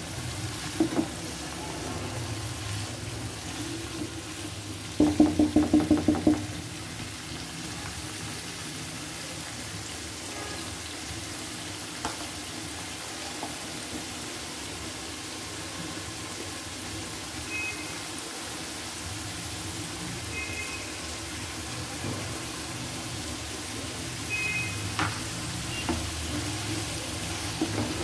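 Vegetables sizzling in a hot wok as they are stirred with a wooden spatula. About five seconds in there is a quick run of about eight loud knocks.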